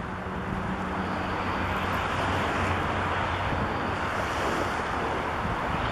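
Four-engined Boeing 747-400 airliner on final approach with gear down, its jet engines making a steady roar that grows slightly louder as it nears, with a low steady hum underneath.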